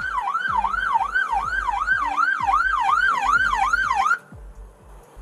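Police siren on a fast up-and-down yelp, about three sweeps a second, that cuts off abruptly about four seconds in.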